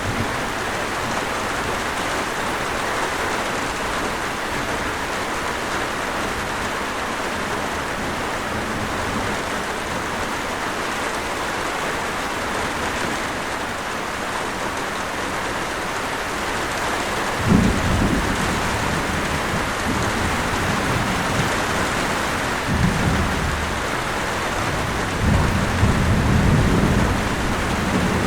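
Steady heavy rain falling, with low rumbles of distant thunder rolling in about two-thirds of the way through and again near the end.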